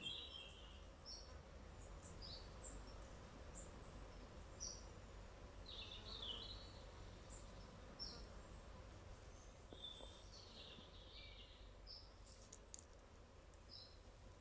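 Quiet outdoor ambience with faint, scattered high chirps and short calls of small birds over a low, steady rumble.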